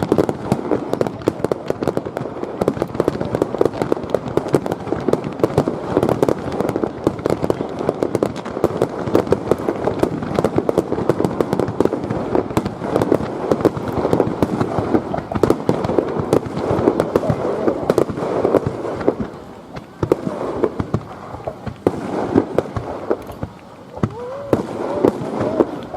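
Aerial fireworks bursting in a dense, continuous barrage of booms and crackles, easing off briefly about three-quarters of the way through.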